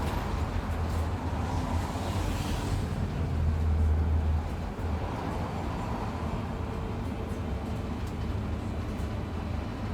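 Inside a moving bus: a steady low rumble of engine and road, with a brief hiss about two seconds in and faint light clicks.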